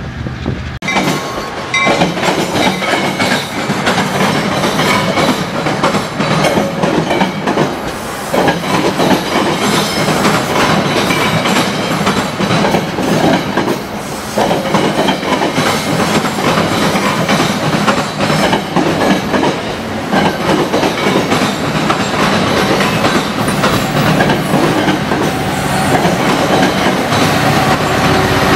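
Metra commuter train of stainless-steel bilevel cars passing close by, its wheels clacking steadily over the rail joints. The sound starts abruptly about a second in.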